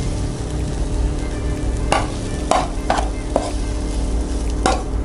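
A metal utensil scraping and knocking against a metal pan while stir-fried noodles are slid out onto a plate, with a handful of sharp clinks in the second half over a steady low hiss.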